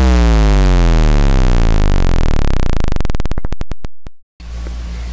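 Synthesized electronic sweep: a loud buzzy tone falling steeply in pitch, slowing into separate clicks and cutting off about four seconds in. A steady hiss and hum follows.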